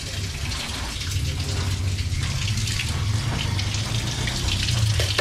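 Tap water running and splashing into a concrete sink as a knife is rinsed under it, with a steady low rumble underneath.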